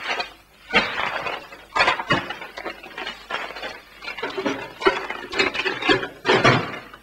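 Rustling and knocking as papers and office items are handled on a desk, in irregular sharp strokes with a few louder knocks.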